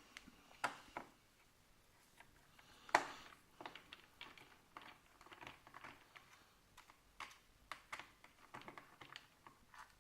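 Scattered light clicks and taps of hands and a small screwdriver working on a laptop's plastic case, irregular, with one louder knock about three seconds in.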